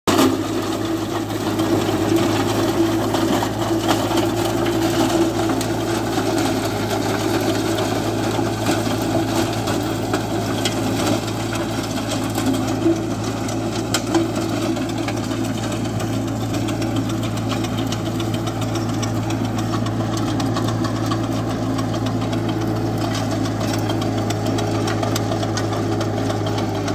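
Captain mini tractor's diesel engine running steadily under load, driving a Captain rotary tiller that churns through the soil. A few sharp clicks stand out over the steady engine note.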